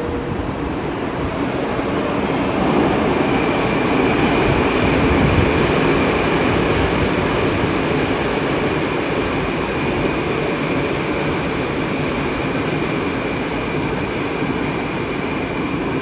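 Moscow Metro train pulling into the station: a steady rumble of wheels and motors, loudest about five seconds in. A high, steady whine joins about three seconds in and holds.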